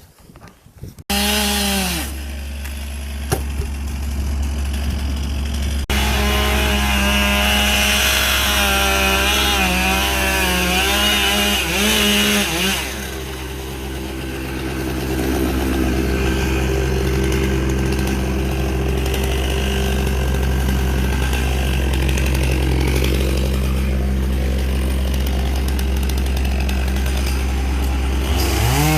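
Chainsaw running hard while cutting through an oak trunk, its engine note dipping and picking up again as it bogs under load in the wood, which is rotten and partly hollow.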